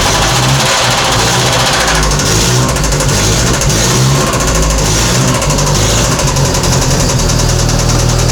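Lada VAZ-2114's four-cylinder engine running just after starting, uneven for several seconds and settling into a steadier idle about seven seconds in. It carries a knock that the crew suspects comes from a burnt or sunken valve.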